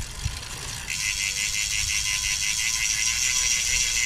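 Rear hub of a Roval Rapide CLX 40 carbon wheel freewheeling as the wheel spins, a fast, even clicking buzz from the hub's ratchet that starts about a second in.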